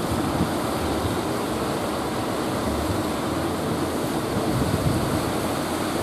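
Rough surf breaking and washing ashore, with strong wind buffeting the microphone in low, gusty rumbles.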